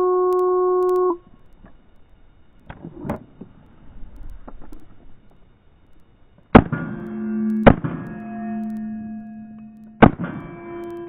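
A shot timer's start beep lasting about a second, some small handling clicks as the pistol is drawn, then three shots from a Wilson Combat CQB 9mm 1911 pistol, the first about six and a half seconds in, the next a second later and the last near the end. Each shot is followed by a ringing tone that hangs on, typical of bullets striking steel plates.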